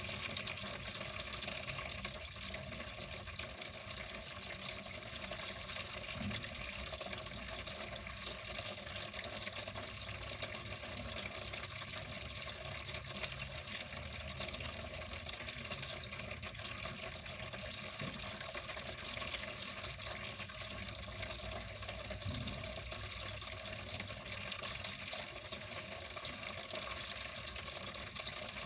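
Water flowing steadily and continuously, an even splashing rush without pause.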